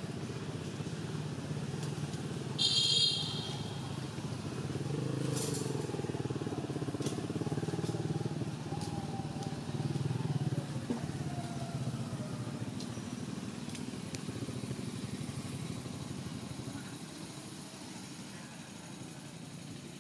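A motor vehicle engine running steadily, its pitch rising and falling a little, with a short, loud, high-pitched squeal about three seconds in and a few faint clicks.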